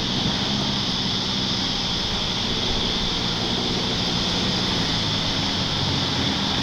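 A vehicle engine running at a steady pace, with a constant high-pitched hiss over it.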